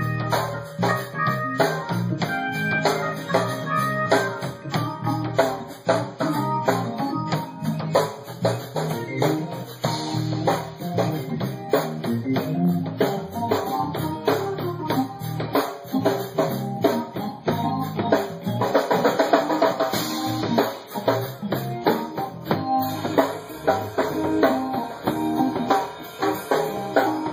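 A song played with drum kit and guitar, with a steady beat throughout.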